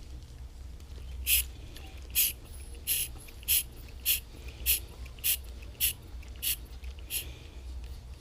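Hand vacuum pump (Mityvac) being squeezed in about ten short strokes, roughly one every 0.6 s, drawing brake fluid and air out through a brake caliper's bleeder valve.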